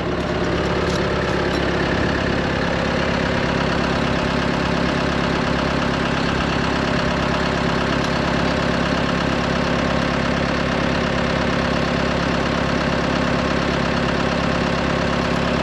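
Engine of a fork-equipped lifting machine running steadily at an even, unchanging speed.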